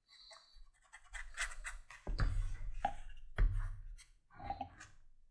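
Handling sounds at a leather bench: rubbing, then three light knocks about two to three and a half seconds in. The sounds come from a dauber of gum tragacanth burnishing compound being worked along a leather holster's edge and set back in its bottle.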